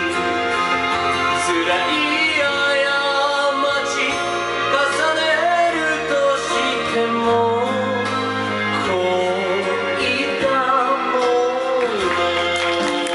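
A Japanese song with a singer holding long, wavering notes over instrumental accompaniment.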